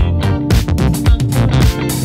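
Electronic background music with a fast, steady drum beat and sustained pitched notes.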